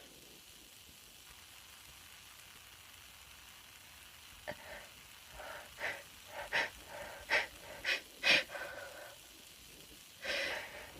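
A woman's short, sharp sniffs and quick breaths, about nine in a row, start about four seconds in. A longer breath in follows near the end, as the tickle builds toward a sneeze.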